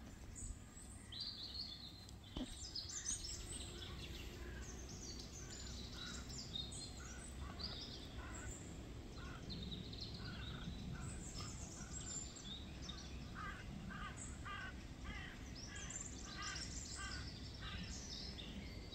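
Birds singing and calling outdoors: many short high chirps throughout, and in the second half a run of short calls repeated at a steady pace, over a steady low background rumble.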